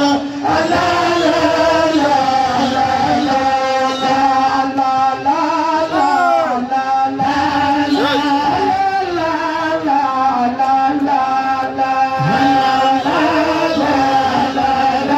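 A woman chanting a religious praise song into a microphone, solo, holding long notes with quavering, ornamented runs between them.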